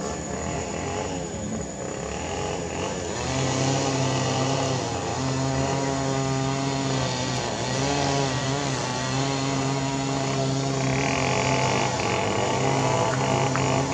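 A motor vehicle's engine running steadily nearby, a low hum whose pitch wavers slightly, with a higher buzzing joining about ten seconds in.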